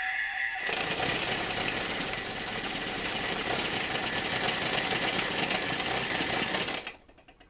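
Toy JCB digger's electronic sound module playing an engine-running sound effect through its small speaker: a steady, noisy engine sound that cuts off suddenly near the end. It starts just as a short run of pitched electronic tones ends, under a second in.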